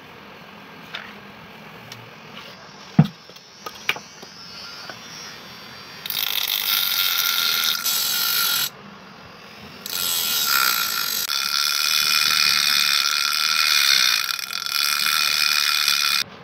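A few light clicks and a sharp knock about three seconds in, from handling the knife and its wooden handle scales. Then an angle grinder grinds against the knife: a short spell of about two seconds, a pause, and a longer spell of about six seconds.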